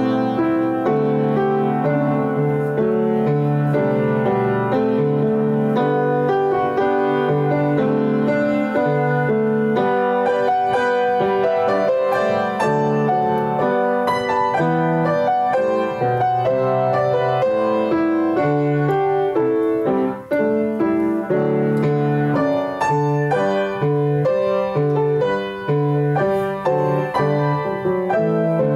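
Piano music, a steady flow of sustained notes and chords.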